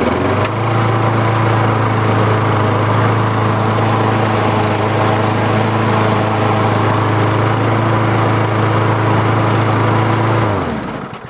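Tecumseh single-cylinder lawnmower engine running steadily at speed, then shut off about ten seconds in and winding down. The engine once seized after running out of oil and was freed again; the owner hears some knocking when it runs.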